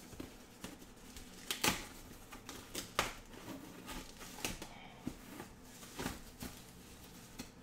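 Hands handling the foam-sheet wrap and cardboard packing around a subwoofer in its box: irregular sharp crinkles, rustles and taps.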